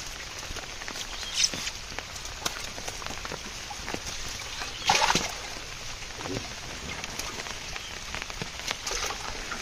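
Steady light patter of rain, with fish flapping and the wet cast net rustling on the grass as the catch is picked out. A louder rustle comes about five seconds in.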